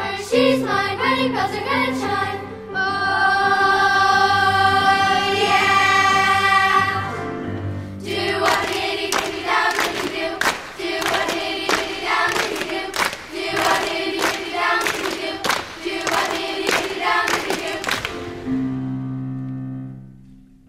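Children's choir singing the close of a 1950s rock-and-roll medley: a long held chord a few seconds in, then a fast section with sharp, regular beats, ending on a final low held note that fades out near the end.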